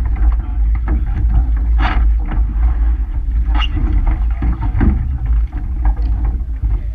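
Wind rumbling on the microphone of a camera on the stern of a rowing shell, with a few short knocks from the shell and its oars as the sculler settles in beside the dock, the loudest about two seconds in and another a little past the middle.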